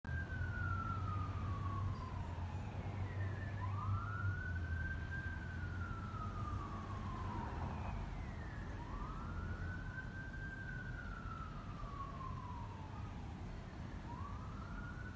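Emergency vehicle siren in wail mode: the pitch sweeps up quickly, then falls slowly, repeating about every five seconds, three times, over a steady low rumble.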